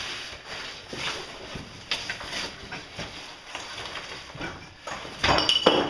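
Loose rocks knocking and clinking together as boulders and rubble are shifted by hand: a few scattered knocks, then a quick run of louder, ringing knocks near the end.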